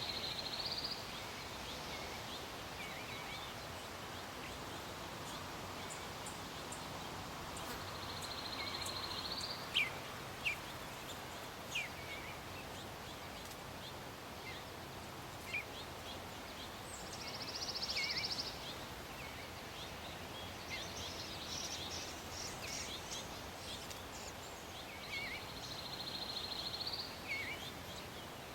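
Songbirds calling over a steady hiss: a short, high, buzzy trill about a second long repeats roughly every eight seconds, with scattered short chirps in between.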